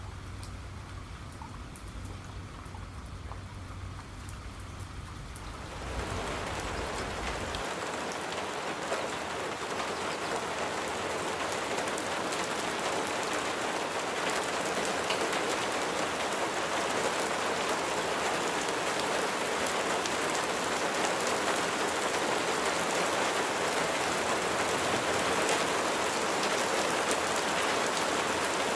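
Rain falling steadily, with a low rumble beneath it at first. About six seconds in the rain turns suddenly heavier and louder, a dense even downpour, and the rumble stops soon after.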